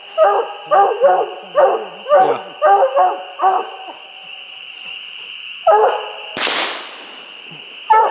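Young coonhound barking treed at a raccoon: a run of quick chop barks, about two a second, then a pause and one more bark, followed by a short burst of noise. A steady high-pitched hum sits underneath.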